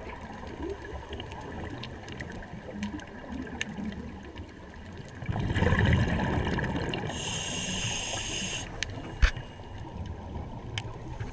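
Scuba diver's breathing heard underwater: about five seconds in, exhaled bubbles rumble out of the regulator, followed by a hiss of inhalation through it. Faint scattered clicks run throughout, and a single sharp knock comes near the end.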